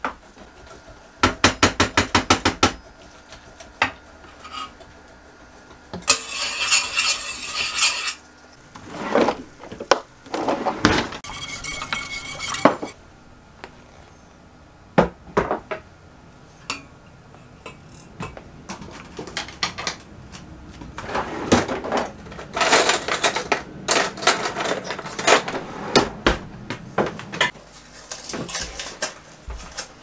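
Cooking in a small kitchen: utensils clinking, knocking and scraping against pots, pans and bowls. A quick run of about a dozen clicks comes near the start, with several longer stretches of clattering and scraping later on.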